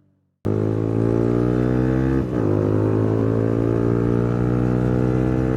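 Suzuki Gixxer motorcycle with a loud aftermarket exhaust running under way, its engine note steady. It cuts in abruptly about half a second in and dips briefly a little after two seconds in.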